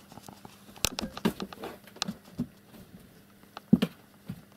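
Cat moving about inside a wire-fronted wooden and cardboard cage: irregular pattering, scrapes and knocks, the loudest about a second in and again about three-quarters of the way through.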